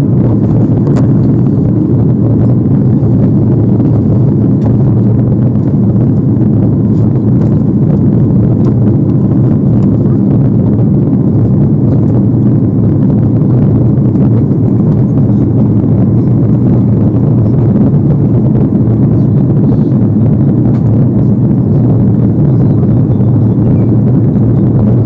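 Steady airliner cabin noise from the engines and airflow inside an Airbus A330-300 in flight, with Rolls-Royce Trent 700 turbofans. It is loud and distorted because the microphone was set wrong, with a few faint clicks.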